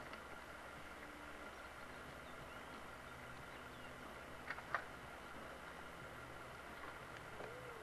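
Faint steady outdoor background hum and hiss, with a few sharp clicks about four and a half seconds in.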